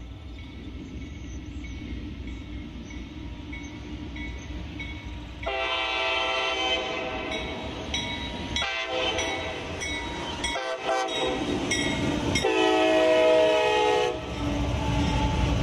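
Multi-chime air horn of an approaching CSX freight locomotive sounding a sequence of blasts, starting about five and a half seconds in: two long blasts, a short one, then a final long one, the pattern of a grade-crossing warning. Under it the low rumble of the train grows heavier near the end.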